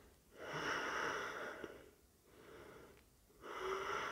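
A man breathing audibly through his nose: two long breaths, the second starting about three and a half seconds in.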